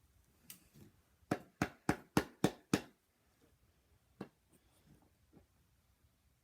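Six quick sharp taps, about three or four a second, then a single one a second or so later, as a plastic slime container with a stuck lid is worked at to get it open.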